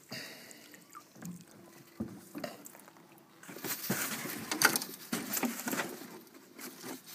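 A freshly landed longnose gar thrashing in the boat: irregular knocks and wet slaps, busiest and loudest about four to five seconds in.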